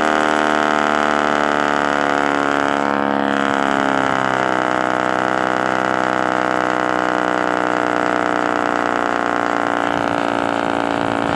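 Small tractor's diesel engine running steadily, driving a hitched compost shredder that spins empty with nothing fed in. Its pitch dips slightly about three seconds in, then holds steady.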